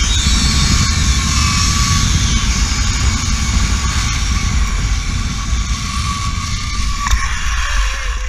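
Zip-line trolley pulleys rolling fast along a steel cable with a steady whirring whine, under heavy wind buffeting on the microphone. A sharp clack sounds about seven seconds in as the trolley reaches the landing platform, and the rush then eases.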